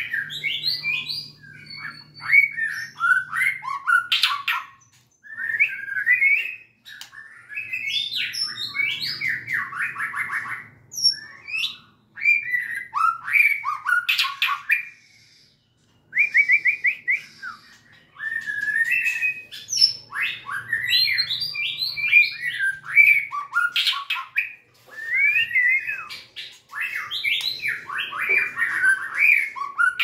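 White-rumped shama singing: a long run of varied phrases of whistles, fast trills and sharp clicks, broken by brief pauses.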